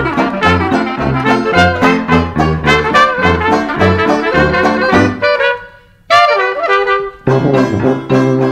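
Background music with a steady beat. About two-thirds of the way in it fades out briefly, a melody phrase plays without the beat, and then the full band comes back in.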